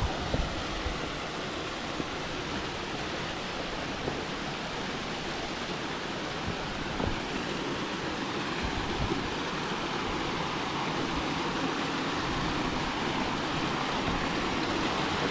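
Waterfall rushing, a steady wash of water noise that grows gradually louder, with a few knocks right at the start.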